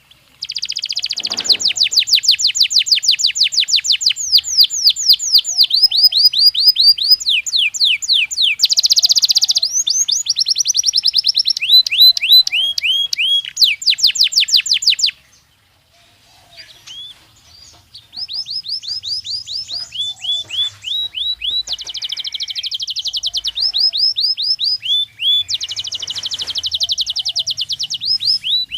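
Belgian canary singing: long phrases of rapid trills, each a quick run of repeated sweeping notes, the trill type changing every second or so. The song breaks off for about three seconds midway, with only a few soft notes, then starts again.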